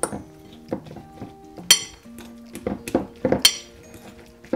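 Hands squishing and kneading wet minced meat with grated cheese in a glass bowl, with a few sharp clinks against the glass, over light instrumental background music.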